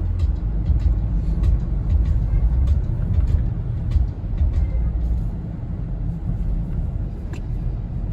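Steady low rumble of a moving vehicle, heard from inside, with scattered light clicks and ticks.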